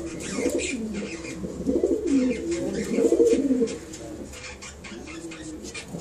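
African grey parrot making low, warbling coo-like vocalizations that bend up and down in pitch. They are loudest from about two to three and a half seconds in, then go quieter, with faint scattered clicks throughout.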